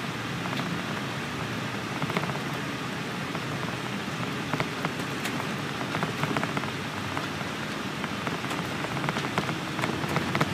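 Cabin ride noise aboard a 2005 MCI D4500CL coach bus under way: steady engine and road noise with frequent small rattles and clicks.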